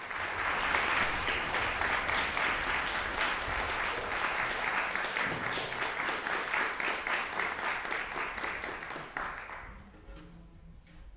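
Audience applauding as the performers come on stage and bow; the clapping is dense and steady, then dies away about nine to ten seconds in.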